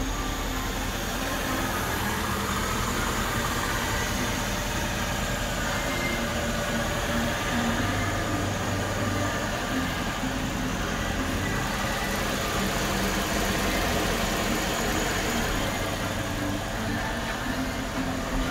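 Mercedes-Benz ML550's 5.5-litre V8 idling steadily, heard close over the open engine bay.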